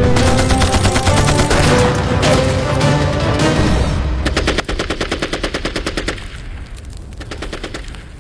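Sustained rapid machine-gun fire from a war-drama soundtrack, with dramatic music over it at first. About four and a half seconds in, the music drops away and the rapid fire carries on quieter.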